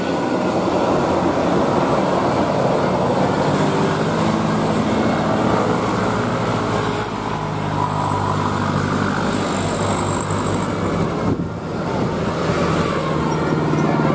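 Large diesel bus running, a steady engine hum under road and traffic noise, with a brief dip in level about eleven seconds in.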